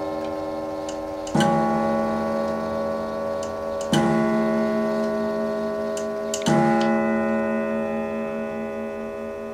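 Dent grand sonnerie bracket clock's coiled hour gong struck three times, about two and a half seconds apart, each stroke ringing on and slowly fading: the clock striking the hour of three at a quarter past three.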